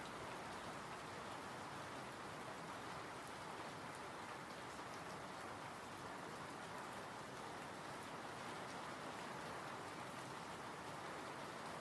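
Steady, calm rain falling, an even hiss with faint patter of individual drops.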